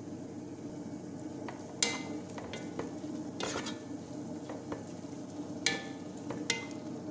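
Wooden spatula stirring and scraping dried sabzi herb leaves as they sauté in a pot, over a steady low sizzle. Several sharp scrapes and knocks of the spatula against the pot ring out briefly.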